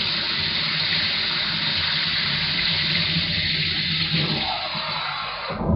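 Kitchen tap running cold water into a small bowl in a steady rush, turned off abruptly near the end.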